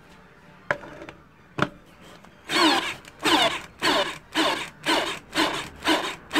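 Cordless drill-driver (a counterfeit Bosch GSR 18-2-LI Plus) forcing a large screw into a timber block under heavy load. The motor runs in short repeated surges, nearly two a second, and its pitch drops in each surge as it bogs down. The surges start about two and a half seconds in, after two light clicks.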